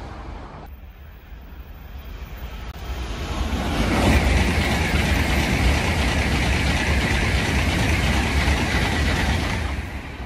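N700-series Tokaido Shinkansen train passing through without stopping. The noise builds over about three seconds, holds steady for about six seconds, then drops off quickly near the end.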